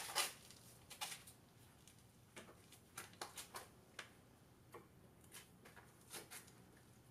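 Faint, irregular clicks and taps of hand tools and parts being handled, with a quick cluster of clicks about three seconds in.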